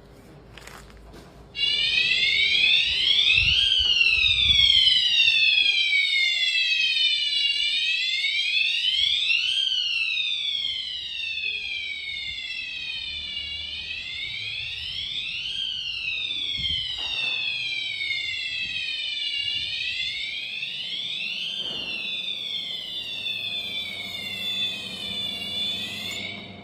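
Fire alarm sounder wailing, a tone that slowly rises and falls about every six seconds, set off by a smoke detector tested with aerosol test smoke. It starts about a second and a half in, is a little quieter in the second half, and cuts off suddenly just before the end.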